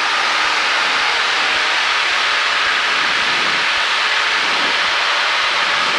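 Steady cabin noise of a Cessna 172 in flight: engine and airflow heard as an even, constant hiss.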